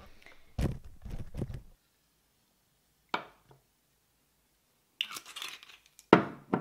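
Containers and a glass handled on a counter while a nutrition supplement drink is made: a cluster of knocks about half a second in, a single click about three seconds in, a brief rattle about five seconds in, and a louder knock near the end.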